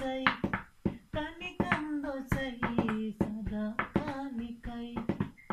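A man singing a slow melody without accompaniment, holding long notes, while beating a steady rhythm with his hands, about three beats a second.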